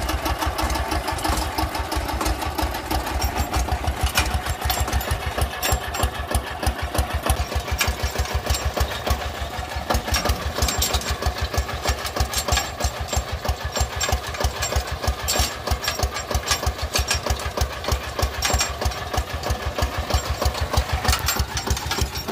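Sanedo mini tractor's single-cylinder diesel engine running under load in a fast, even beat, pulling a weeding hoe between crop rows.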